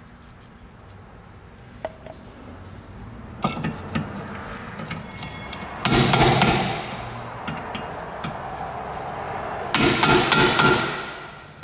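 Hammer blows on a hand driver held against a brake rotor's retaining screw, driving the screw home. A few light taps about three and a half seconds in are followed by two louder bursts of blows, at about six and ten seconds in, each leaving a metallic ring.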